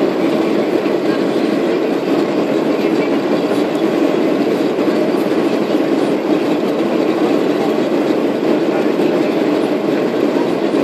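Steady cabin noise of a Boeing 737 airliner climbing after takeoff: engine noise and airflow heard from inside at a window seat, loud and unchanging.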